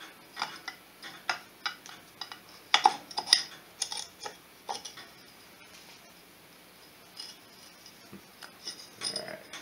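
Steel counterbalancer and crankshaft gears clinking and ticking against each other and the aluminium crankcase as the counterbalancer is set in and its gear meshed to line up the timing marks. Irregular light metallic clicks over the first half, a quiet pause, then a few more clicks near the end.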